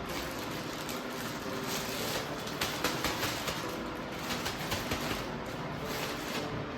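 Parcel packaging rustling and crinkling in bursts as it is handled, over a steady background hiss.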